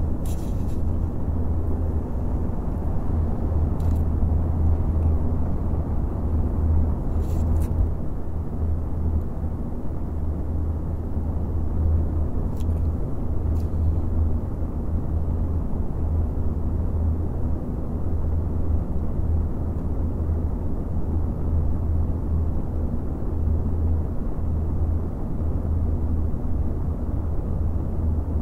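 Four Noctua NF-A14 PWM 140 mm PC fans running off USB power, set in two pairs whose airflows blow against each other: a steady rush of air over a strong, even low hum.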